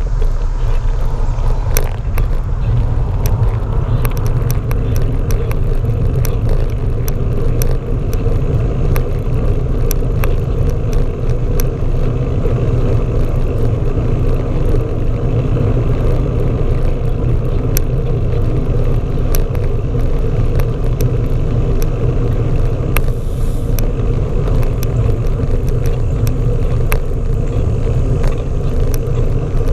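A bicycle riding on asphalt, picked up by a camera rigidly mounted on the seat. It gives a steady low rumble of road vibration and wind, with frequent small clicks and rattles.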